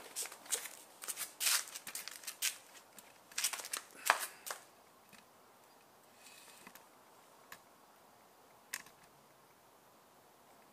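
A run of irregular sharp clicks and taps for about the first four and a half seconds, then quiet with a few single clicks.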